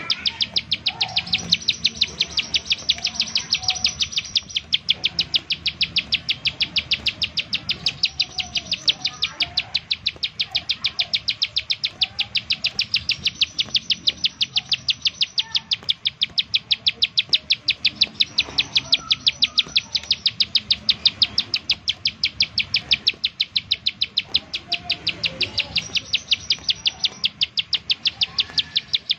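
Ciblek sawah (prinia) calling in rapid-fire 'nembak-nembak' style: a fast, even, unbroken train of sharp high-pitched notes, several a second, used as a lure to set other ciblek sawah singing.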